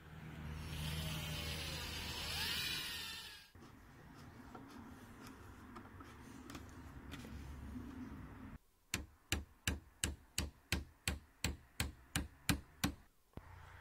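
Hammer knocking a nail into a wooden trim strip on a wooden wagon side: about fourteen quick, even strikes at roughly three a second in the second half. A few seconds of steady noise come first.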